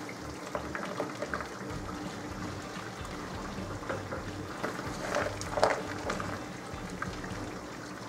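Diced animal fat rendering in a stainless steel pot: the melting fat bubbles and crackles steadily, with scattered light pops and soft clicks as more raw pieces are dropped in by hand.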